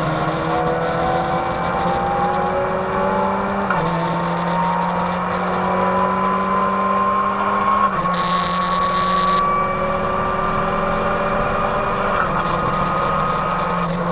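Race car engine heard from inside the stripped, caged cabin, accelerating through the gears: the note climbs steadily and drops at upshifts about 4 and 8 seconds in, and again near 12 seconds. A hiss of road spray hitting the car about 8 seconds in.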